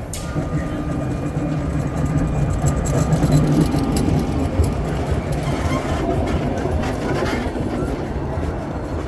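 Vintage electric tram of the Sóller tramway running on its rails: a steady low rumble and hum, with scattered clicks and rattles from the wheels and track.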